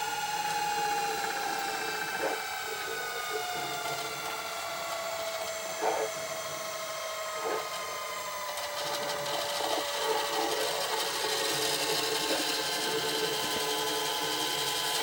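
VCR tape transport winding a VHS tape at high speed, the tape rubbing past a paper and cotton polishing pad: a steady whir with several tones slowly falling in pitch, a few faint ticks, and a brighter hiss after about nine seconds. The once-sticky tape is running smooth, its wax residue being polished off.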